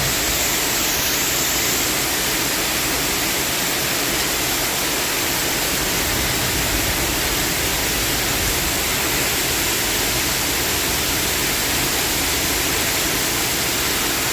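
Heavy rain pouring down steadily in a severe storm, an even, unbroken hiss.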